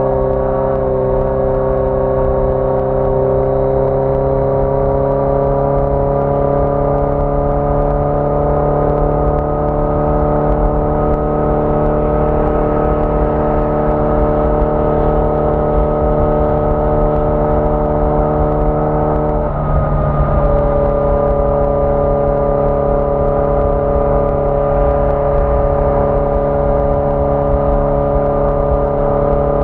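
1981 Yamaha XJ650 Maxim's air-cooled inline four-cylinder engine running under way. Its note climbs slowly in pitch over the first several seconds, then holds steady. About twenty seconds in it breaks briefly and settles at a slightly lower pitch.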